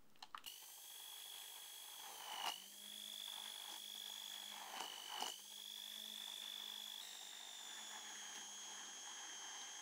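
An immersion blender runs in a saucepan of strawberry and sour-cherry purée, its motor a steady high whine. Its pitch dips briefly twice, about two and a half and five seconds in, as the blade meets the fruit. A few light clicks come just before it starts.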